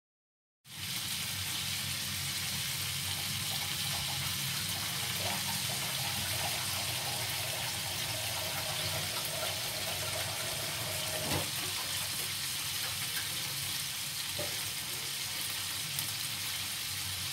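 Chicken and vegetable shashlik skewers sizzling steadily in hot oil in a frying pan, starting suddenly just under a second in, with a steady low hum underneath.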